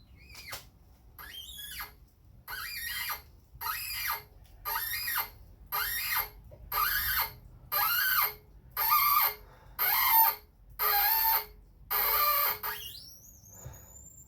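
A threading die cutting a thread on a small metal rod for a trumpet valve stem, squealing with each turn of the die: about a dozen squeals roughly one a second, growing louder, with a rising squeal near the end.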